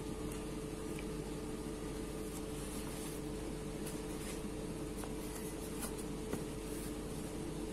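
Pen writing on ruled notebook paper, with faint scratches and taps of the strokes, over a steady low hum of room equipment.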